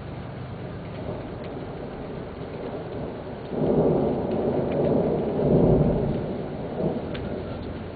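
Steady rain with a rumble of thunder that rolls in sharply about three and a half seconds in. The rumble is loudest a couple of seconds later and dies away near the end.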